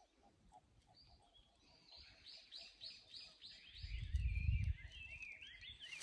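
Wild songbirds singing: a quick run of falling chirps about two seconds in, followed by more twittering. A brief low rumble a little after the middle.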